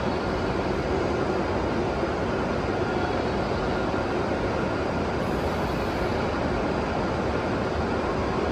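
Steady hum and hiss of a 521 series electric train standing at the platform with its equipment running.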